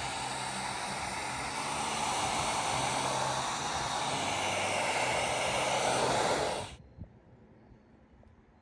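Electric heat gun running steadily, its fan blowing hot air over freshly poured epoxy to bring the air bubbles out; it cuts off suddenly near the end.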